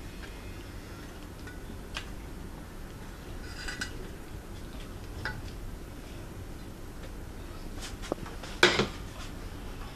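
A few scattered clinks and knocks of cookware, a steel saucepan and a spatula against a nonstick tart tin as caramel is poured and spread, with the loudest knock near the end.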